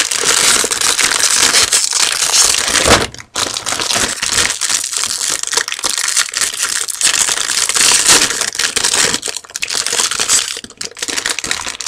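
A Milka ChocoMoo snack packet's wrapper crinkling and crackling as hands tear it open and crumple it, continuous apart from a brief pause about three seconds in.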